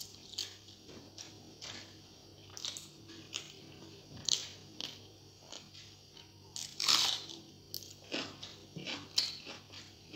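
Close-miked mouth sounds of a person eating rice and egg curry by hand: irregular wet chewing and lip-smacking clicks, with a louder bite about seven seconds in.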